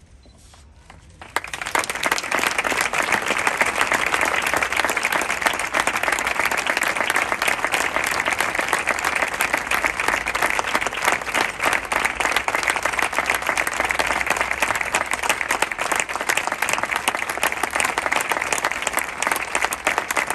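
Audience applauding, starting suddenly about a second in and keeping up steadily as a dense patter of many hands clapping.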